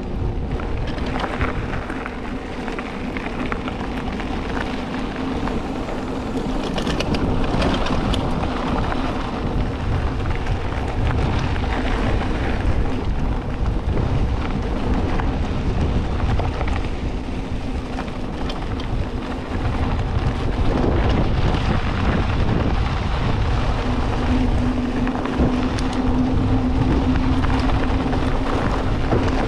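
Wind rushing over the microphone of a mountain bike descending fast on a dirt road, with the tyres rolling over loose dirt and a steady buzz underneath that grows stronger near the end.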